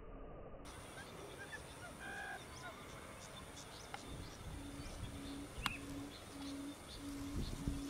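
Barred buttonquail's low hooting call, a short hoot repeated about twice a second, starting about halfway through. Faint chirps of small birds come before it.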